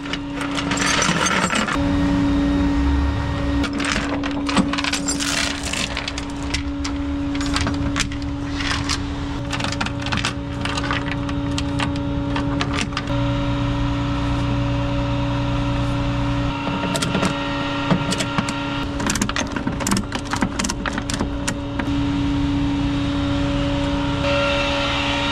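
Steel tow chains clinking and clanking against the aluminium flatbed deck as they are hooked on, in many short sharp hits. Under them runs the steady hum of the idling rollback tow truck.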